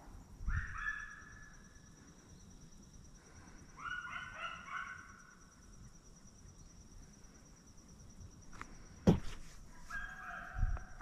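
Faint baying of deer-hunting hounds in three short bouts: about half a second in, around four seconds in, and near the end. A single sharp click about nine seconds in is the loudest moment.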